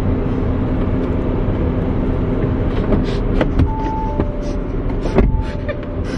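Steady low rumble of a car cabin with the engine running. A few short sharp sounds and brief tones come in the second half.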